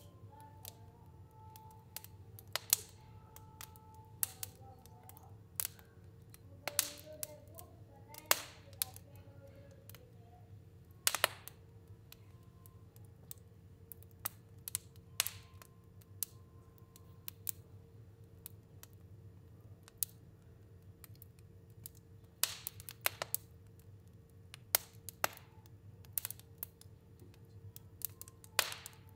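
Fire crackling in a stove, with irregular sharp pops, some of them loud, over a low steady hum.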